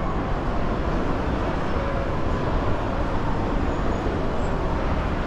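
Steady city street noise, mainly the low rumble of passing traffic.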